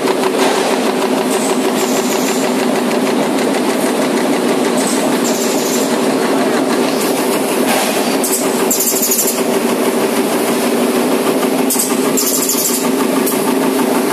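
High-speed progressive stamping press punching motor rotor and stator laminations at about 380 strokes a minute: a fast, steady, loud mechanical clatter, some six strokes a second. A higher hiss comes and goes a few times over it.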